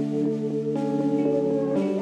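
Slow ambient background music of held chords, the chord changing about once a second.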